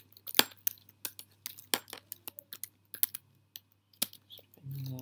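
Typing on a computer keyboard: irregular key clicks, several a second. Near the end a person gives a short hum.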